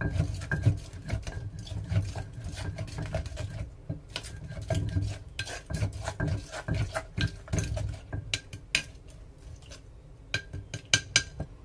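Irregular clinks, taps and scrapes of cutlery against dishes, with a quick run of sharper clicks near the end.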